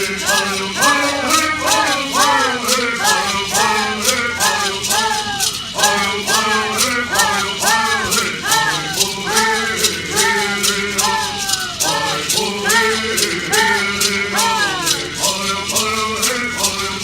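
Southern California Native American bird song: a group of singers chanting short, arching phrases in unison over gourd rattles shaken in a steady beat of about four strokes a second.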